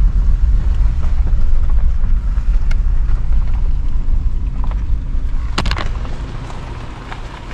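Toyota 4Runner driving on a rough track, a steady low rumble of engine and tyres that fades toward the end as it slows. A couple of sharp knocks about five and a half seconds in.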